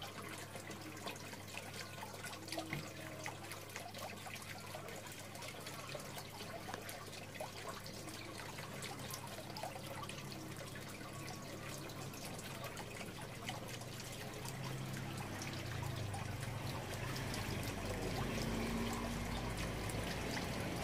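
Soft scratching and crumbling of potting soil as a thin stick pokes planting holes and cuttings are pressed in along the rim of a plastic pot, with many faint small ticks over a steady low hum. The background gets a little louder in the last few seconds.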